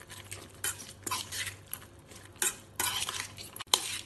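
Steel spoon stirring and scraping a moist salad of soaked moong dal and grated vegetables around a stainless steel bowl, in irregular strokes, with a sharp clink of spoon on bowl near the end.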